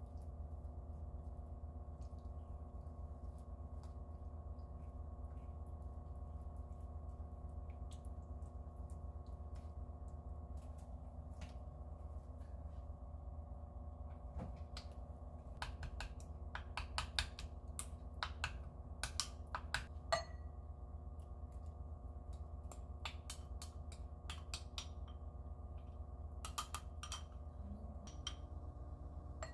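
Light clicks and taps of kitchen utensils against dishes, clustered about halfway through with a few more near the end, over a steady electrical hum from a kitchen appliance.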